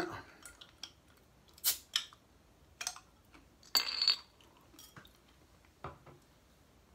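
Glass Coca-Cola bottle handled on a table: a few sharp clinks and taps, and about four seconds in a short hissing burst.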